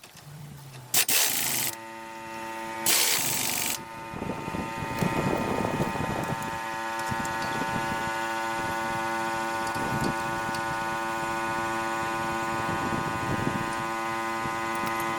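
Two short bursts of hissing tool noise, then a steady motor hum of fixed pitch that starts about two seconds in and holds on unchanged, from power tools during a CV axle job.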